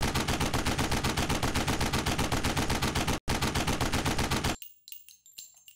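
Rapid automatic gunfire sound effect, about nine shots a second, with a brief break after about three seconds, then stopping. Spent shell casings then fall and clink.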